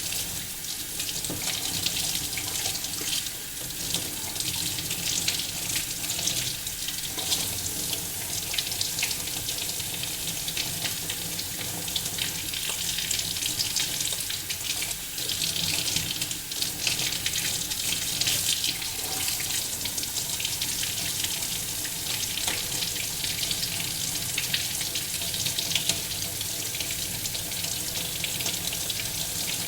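Tap water running steadily into a sink, splashing and shifting as things are rinsed under it.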